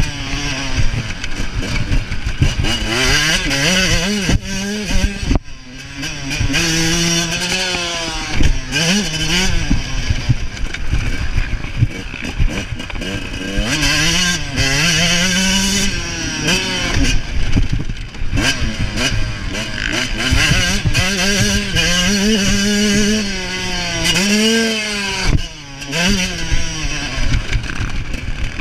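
Motocross dirt bike engine, heard from on board, revving up and dropping back over and over as it is ridden hard around a dirt track and shifted through the gears. The throttle is briefly shut off about five seconds in and again near the end.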